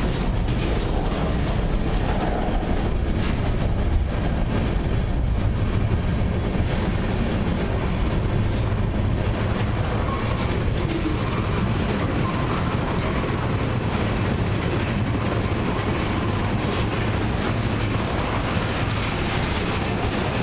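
Freight cars of a long mixed and autorack train rolling past, a steady rumble of steel wheels on the rails.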